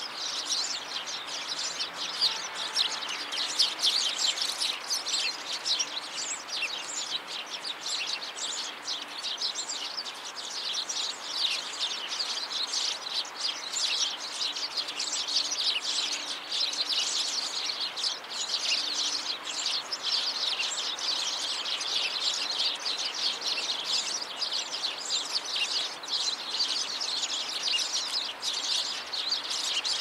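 A flock of house sparrows chirping: many short, high chirps overlapping without a pause.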